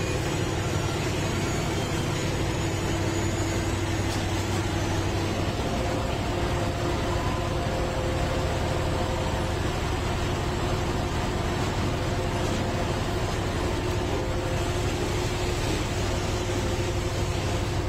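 Heavy diesel engine of a railway track-laying machine running steadily: an even drone with a strong low hum and a few held tones above it.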